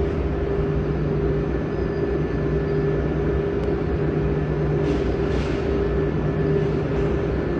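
Diesel engine of a DAF tipper truck running steadily, a low, even drone.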